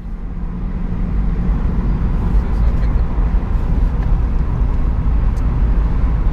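A vehicle driving along the road: a steady low rumble of engine and road noise that swells up over the first second.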